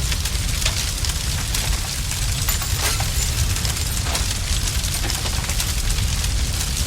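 A large fire burning, with a steady low rumble and constant sharp crackles and pops.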